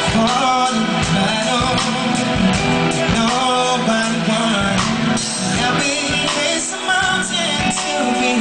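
Live R&B band playing, with a male singer's voice carrying the melody over it.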